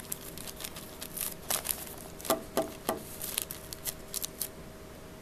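Clear plastic bag crinkling as a hand handles an egg wrapped in it, with three sharper clicks in quick succession near the middle.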